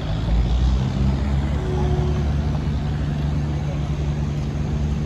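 Steady low engine drone of several even pitches, swelling at the start and then holding, over a general city and river hum.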